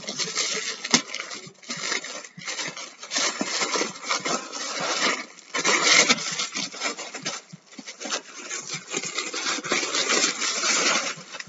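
White paper wrapping rustling and crinkling as hands tear it open and pull it off a boxed doll. It comes in stretches with brief pauses.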